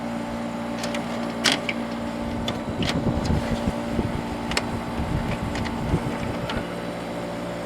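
Older LG 10,000 BTU R22 window air conditioner running with a steady hum from its compressor and fan, its noisy part now held with zip ties so that it runs quietly. A few light clicks sound over the hum.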